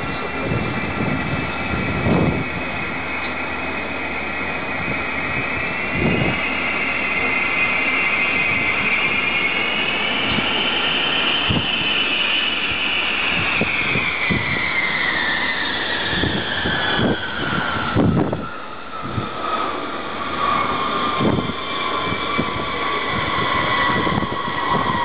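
B-52 bomber's eight jet engines whining at low approach power as it flies past. The whine rises a little in pitch, then falls steadily from about halfway through as the bomber passes and draws away. Occasional low thumps run underneath.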